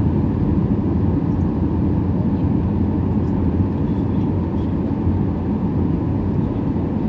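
Steady low roar of a Ryanair Boeing 737-800's cabin on final approach to landing: the engines and rushing airflow heard from inside the passenger cabin.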